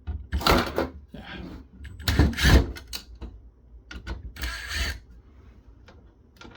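Cordless drill run in three short bursts, driving screws out of a metal equipment housing, with clicks and rattles of loose parts between the bursts.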